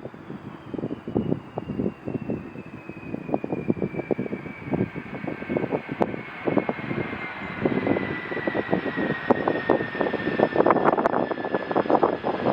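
Jet airliner coming in to land, its high engine whine falling steadily in pitch as it passes. Heavy wind buffeting on the microphone comes in gusts throughout.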